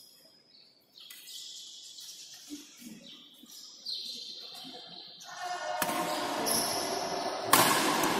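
Badminton play on an indoor court: shoes squeak on the court floor, and then a rally starts with the shuttlecock struck by rackets. The loudest sound is a sharp racket hit near the end.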